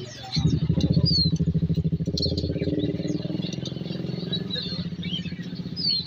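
A motorcycle engine running close by: a low, pulsing sound that starts abruptly about half a second in and holds steady, loudest in the first couple of seconds. Short high bird chirps sound over it.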